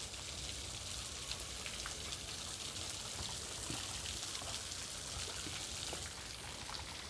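Water falling in a rock-grotto waterfall, a steady even splashing hiss with a few faint drips.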